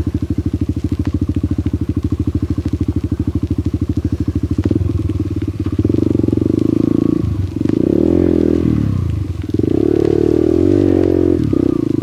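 Yamaha XTZ125's single-cylinder engine idling with a steady, even putter, then, about five seconds in, revving up and down under load as the bike pulls through the mud, the revs dropping and picking up again several times.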